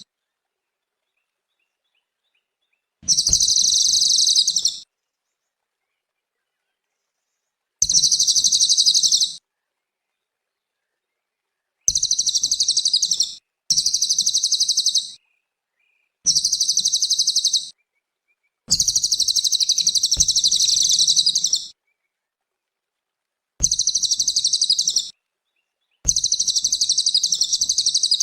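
Cililin songbird singing in repeated bursts of rapid, high-pitched twittering, about eight of them, each one to three seconds long and cut off into complete silence between: a looped song recording of the kind played to train pet birds.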